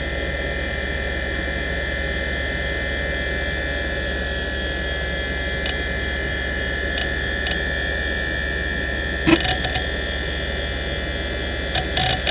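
NEC D3724 426 MB hard drive spinning with a steady whine over a low hum, with a few faint head-seek ticks, one louder click about nine seconds in, and a quick run of seek clicks near the end as the drive starts reading the operating system at boot.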